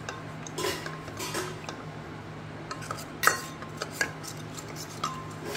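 Steel ladle clinking and scraping against a small stainless-steel bowl as custard powder is stirred into water to dissolve the lumps, in irregular strokes with one sharper clink a little past the middle. A steady low hum runs underneath.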